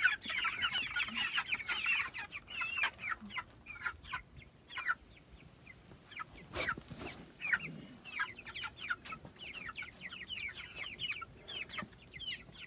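A flock of three-week-old Cornish Cross broiler chicks peeping: many short, high, falling chirps that overlap. They are densest in the first two seconds, thin out midway, and pick up again toward the end. A single click sounds about six and a half seconds in.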